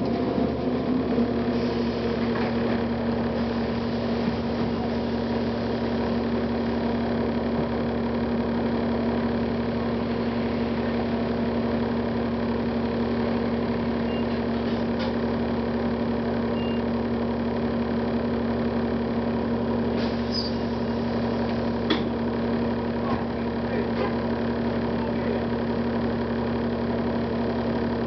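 Cummins ISL diesel engine of a Gillig Advantage transit bus idling with a steady hum, settling to idle in the first second, with a few faint clicks and rattles.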